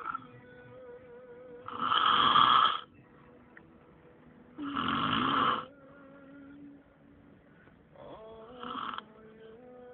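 A sleeping taxi driver snoring: three long snores about three seconds apart, the first two loud and the last one softer.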